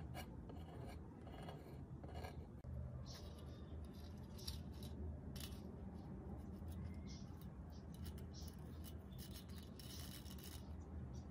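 A run of short, scratchy scraping and rubbing sounds as a new corrugated spider (centering damper) is glued into a loudspeaker's metal frame: a thin tool scraping glue along the frame, then fingers pressing and rubbing the spider into place. A low steady hum runs underneath.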